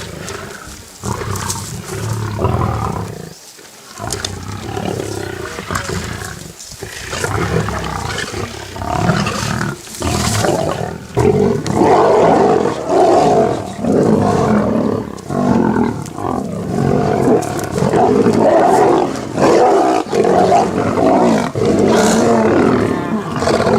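Lions roaring: rough calls that come in a run of about one a second and get louder from about halfway through.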